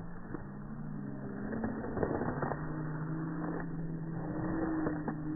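A low, steady motor hum with scattered knocks and clicks; its pitch rises slightly about a second and a half in.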